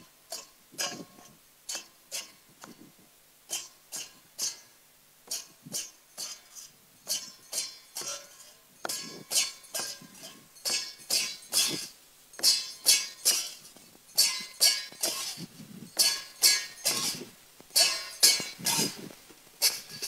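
Metal ritual percussion struck over and over with ringing clinks during a shaman's ghost-chasing rite. The strikes come about once a second at first, then come faster and louder from about halfway through.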